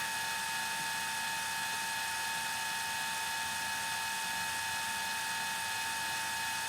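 A steady high whine at several fixed pitches over a constant hiss, unchanging throughout.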